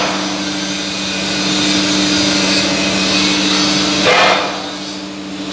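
Steady hum and hiss of the radial drill machine running, with a single knock about four seconds in.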